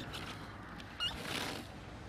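Hands tossing and mixing shredded raw cabbage in a bowl, a brief crisp rustle, with a short high chirp about a second in.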